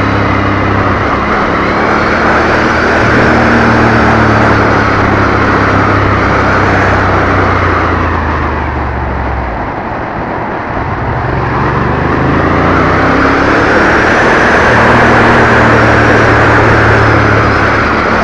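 Ducati Monster's L-twin engine running under way, heard through heavy wind noise on a helmet-mounted microphone. Near the middle the engine note fades for a couple of seconds, then climbs back up in pitch.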